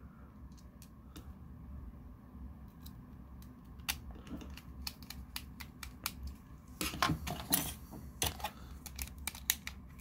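Light clicks and taps of a small screwdriver and plastic parts as a remote control's back and battery compartment are handled and pressed together, with a brief run of clicks about seven seconds in.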